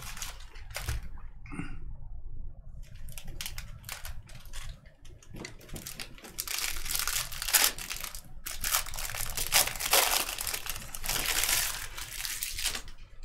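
Foil trading-card pack wrappers crinkling and crackling as packs are handled and torn open, the crinkling sparse at first and then dense and continuous from about six seconds in until near the end.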